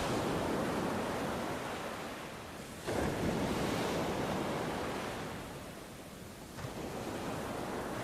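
Sea surf: waves rushing and washing ashore, the noise swelling and ebbing, jumping suddenly louder about three seconds in and rising again near the end.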